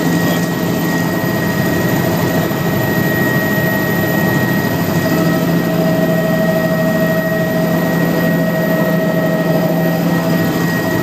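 Helicopter engine and rotor heard from inside the cabin in flight: a loud, steady drone with a high whine held at one pitch.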